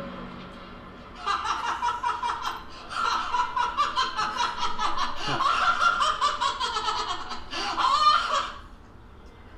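Film soundtrack laughter: a long run of laughing in choppy bursts, starting about a second in and stopping shortly before the end.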